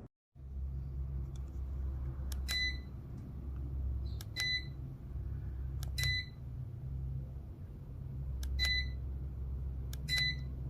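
DEKA Kronos DC ceiling fan's receiver beeping five times as remote buttons are pressed, a click and a short high beep each time, about every two seconds, over a steady low rumble.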